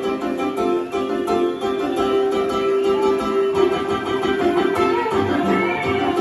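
Live rock band playing an instrumental passage, guitar to the fore, with violin, keyboards and drums.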